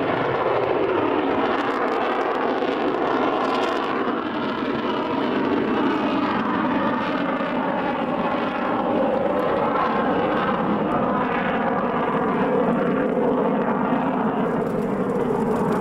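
Saab JAS 39 Gripen fighter's single Volvo RM12 turbofan in flight, a steady rushing jet noise whose tone slowly sweeps and wavers with a phasing quality as the jet moves through its display.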